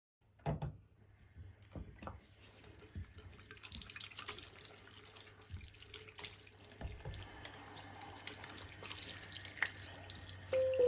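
Water running from a tap into a sink, with small clicks and knocks of things being handled. Two sharp knocks come about half a second in.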